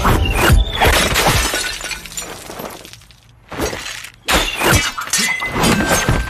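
Sword-fight sound effects: sharp metallic strikes, crashes and swishes of a blade. There is a lull about three seconds in, then two more sudden loud strikes.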